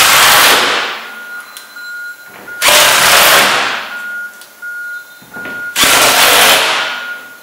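Cordless drill-driver running in three bursts of about a second each, driving leg screws into a plastic panel: one at the start, one near the middle and one near the end.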